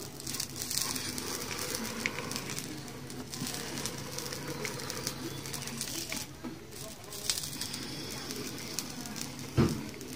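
An electric frame-wire embedder heats the wire and melts it into a beeswax foundation sheet, giving a faint sizzling crackle over a low steady hum. A single knock comes near the end.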